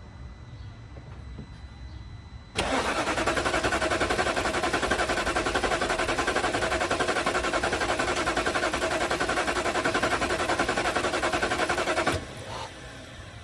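2008 BMW 550i's 4.8-litre V8 cranking on the starter for about ten seconds with a fast, even pulsing, never catching, then cutting off suddenly. It is a crank-but-no-start that a new fuel pump, relays and fuses have not cured.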